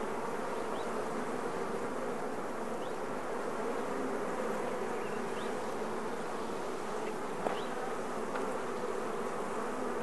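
Honeybees of an opened hive colony buzzing in a steady, unbroken hum.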